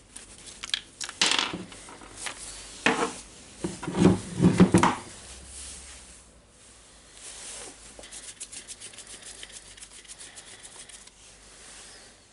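Hand work on a rotary hammer drill's parts: irregular knocking, scraping and rubbing of plastic and metal, loudest about four seconds in, then a run of quick, even clicks several times a second in the second half.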